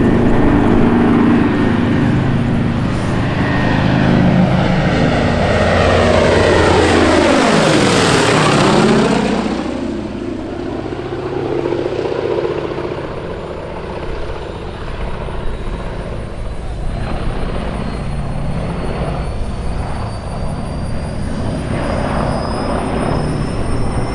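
Boeing B-17 Flying Fortress's four Wright R-1820 Cyclone radial engines droning as the bomber makes a low pass overhead. The pitch drops sharply as it goes by, about eight seconds in, and the sound then fades as it banks away.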